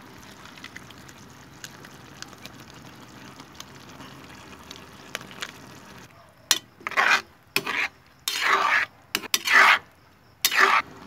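Bottle gourd pieces cooking in sauce in a wok with a faint steady sizzle, then a metal spatula stirring and scraping through them in about six short strokes, starting about six seconds in.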